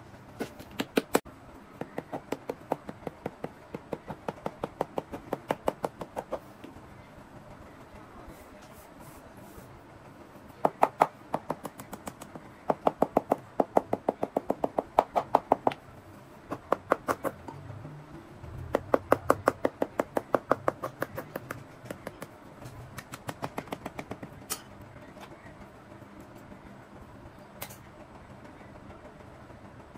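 Cobbler's hammer tapping on a leather boot held on its last, in runs of quick light strikes, about five a second, broken by short pauses and stopping near the end.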